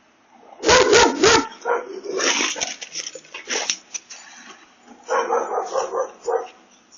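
A dog barking at a person at the door, heard through a Ring doorbell camera's microphone. The loudest burst of barks comes about half a second in, with more barks through the middle and another run near the end.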